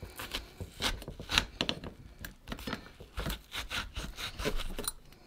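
A knife cutting and scraping a hole through a soft apple: irregular scrapes and small knocks.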